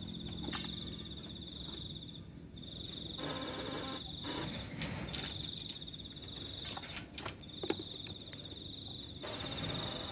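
A cricket trilling, a steady high pulsing note repeated in phrases of about two seconds with short breaks. It is crossed by a few brief rustling noises, the loudest near the end.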